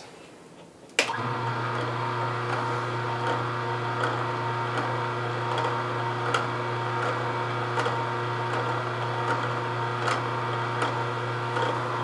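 Omega NC800 horizontal single-auger slow juicer switched on with a click about a second in, then running with a steady motor hum and faint light ticks, cutting off at the very end.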